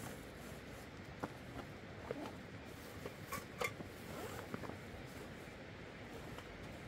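Scattered light clicks, knocks and rustles of gear being handled in an open car boot and in a woven plastic sack, over a steady low hiss.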